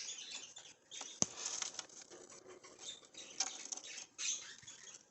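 Baby budgerigars moving about: faint, irregular scratchy sounds and small squeaks, with one sharp click about a second in.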